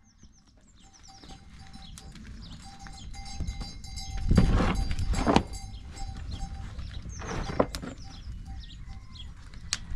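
A thick rug being handled, shaken and laid down on the ground, heard as rustling, flapping noise that is loudest about four to five seconds in, with a shorter burst later. Small chirping calls run through the background.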